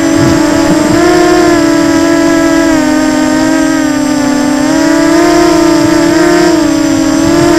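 FPV quadcopter's brushless motors and propellers whining steadily as it flies, the pitch drifting up and down with the throttle: rising about a second in, dipping in the middle, then climbing again near the end.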